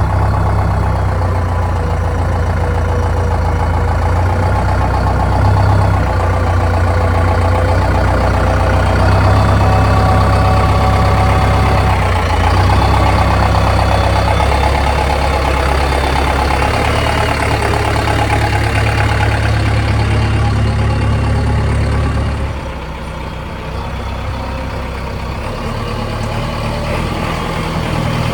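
JCB 3DX backhoe loader's diesel engine running under load while it digs and loads, its note rising and falling. It eases off about 22 seconds in and then builds again.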